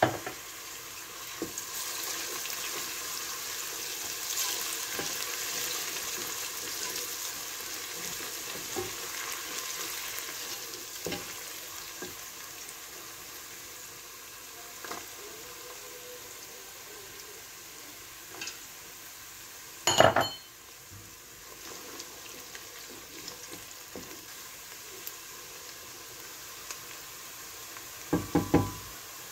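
Chopped onions sizzling in hot oil in a stainless steel pot, a steady hiss that is a little louder in the first third. Stirring knocks against the pot come now and then, with one sharp, loud knock about two-thirds through and a quick cluster of knocks near the end.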